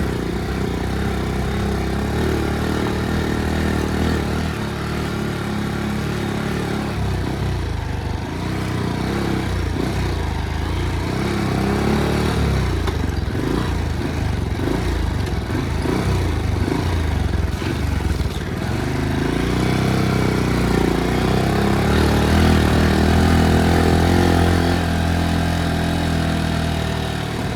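Motorcycle engine running under way, its revs rising and falling; the engine note climbs and gets louder about twenty seconds in, then eases off near the end.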